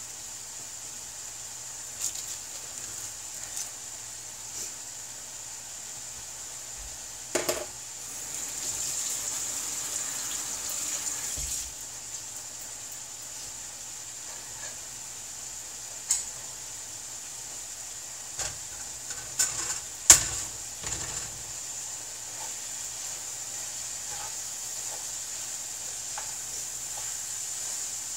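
Ground beef frying in a pan, a steady sizzling hiss, with scattered short knocks and clinks. The loudest is a sharp knock about twenty seconds in. The hiss swells for a few seconds about a third of the way in.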